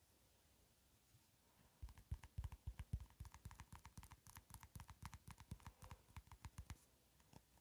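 Fingertips tapping rapidly on the plastic lid of a slime container, a quick run of light clicks, several a second. It starts about two seconds in and stops shortly before the end.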